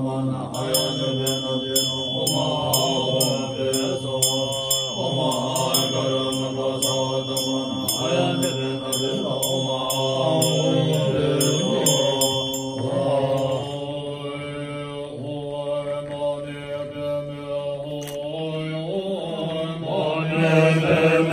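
Tibetan Buddhist monks chanting a mantra in deep, low, sustained voices. For the first dozen seconds a high metallic ringing is struck in quick regular strokes, about two or three a second, then stops.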